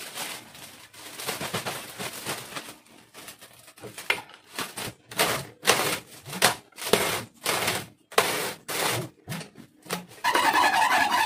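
Hands sliding and knocking a cardboard core tube along the metal shaft of a plastic-wrap rewinding machine: a run of short scraping strokes, about two a second in the middle. About a second before the end the machine's electric motor switches on and runs steadily with a constant whine.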